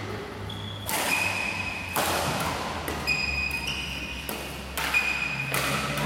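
Badminton rackets striking a shuttlecock in a rally, a sharp hit about once a second, each followed by a short ringing ping and echo in the hall.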